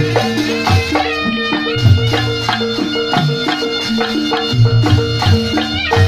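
A Reog gamelan ensemble playing: a slompret shawm carries a wavering, bending melody over a steady interlocking pattern of small gongs and kendang drum strokes, with deep gong and drum beats about once a second.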